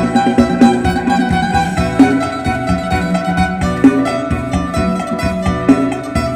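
Isan phin, the Thai-Lao plucked lute, playing a lively lam sing melody over a steady beat.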